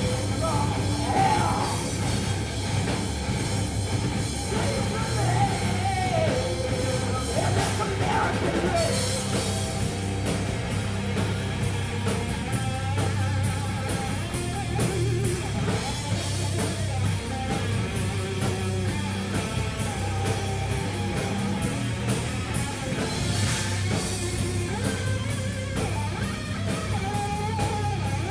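Live hard rock band playing: electric guitars and a drum kit with crashing cymbals, and a woman singing over them.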